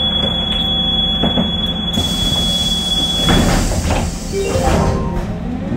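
Standing Škoda 14 Tr trolleybus humming steadily from its onboard electrical equipment, with a thin high-pitched whine that stops about three and a half seconds in, followed by a few clicks and clatters.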